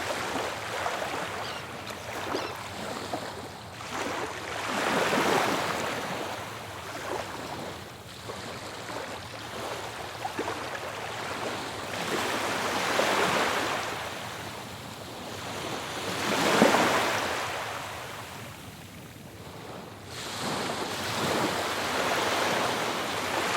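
Ocean waves breaking on a shore, the surf swelling and falling back every few seconds, with the loudest break about two-thirds of the way through.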